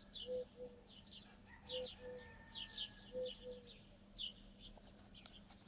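Early-morning birdsong: small birds chirping over and over in short high notes, with a dove cooing in low two-note phrases about every second and a half.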